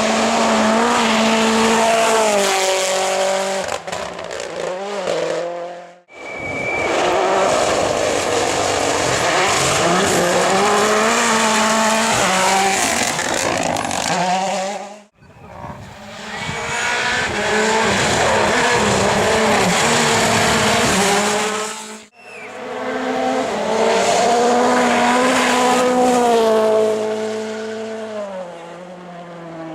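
Rally cars' engines driven hard on a stage, pitch climbing through the gears and dropping on each shift or lift, in four stretches that cut off abruptly.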